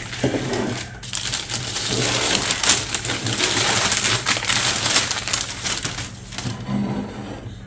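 Newspaper packing being crumpled and pulled off a ceramic cookie jar, crinkling and rustling.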